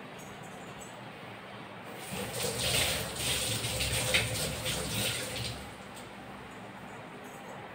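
Water running, starting about two seconds in and stopping after about three and a half seconds.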